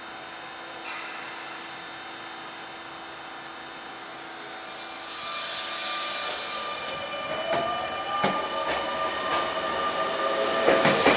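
Sotetsu 8000 series electric train starting away from a standstill. A hiss of air comes about five seconds in, then the Hitachi IGBT-VVVF inverter's whine rises in pitch as the train accelerates, with clicks of wheels over rail joints. Everything grows louder toward the end.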